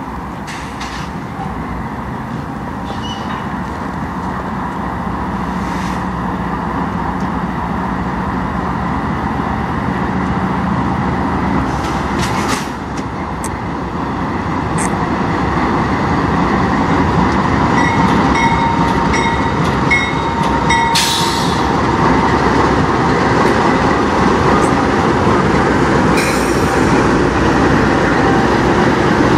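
Diesel locomotives of a CN freight train approaching and passing close by. The engines and rolling train grow steadily louder as the locomotives draw level.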